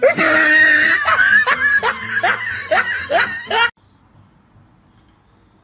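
A person laughing in a run of short, quick bursts that cuts off abruptly about three and a half seconds in, leaving only faint room tone.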